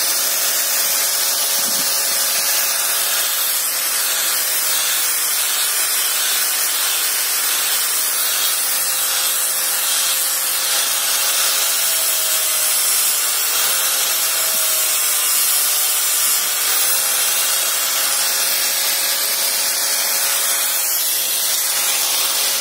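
Buildskill angle grinder with a sanding disc running steadily while sanding wood, a continuous high whine over a rasping hiss; the motor's pitch dips now and then as the disc is pressed into the wood.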